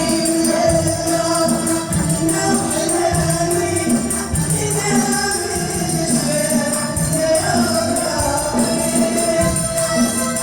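Moroccan wedding music: a group of voices singing together over a steady, driving beat of tambourines.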